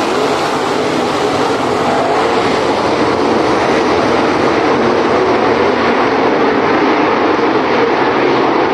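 A field of dirt late model race cars racing together, their V8 engines blending into one loud, steady sound.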